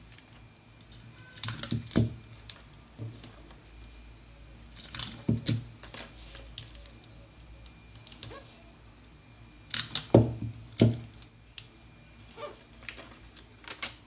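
Paper and adhesive tape being handled as a paper pattern piece is taped in place: crisp clicks and rustles in three bursts, about two, five and ten seconds in, with lighter ticks between.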